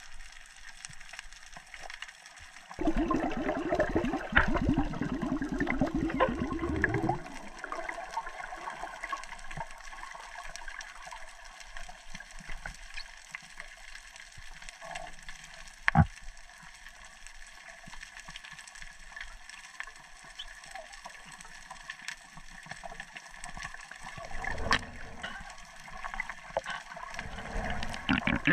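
Underwater sound through a GoPro housing: a steady faint hiss, broken about three seconds in by a loud gurgling rush of water and bubbles that lasts about four seconds. A single sharp click comes near the middle, and the water noise swells again near the end as the camera rises toward the surface.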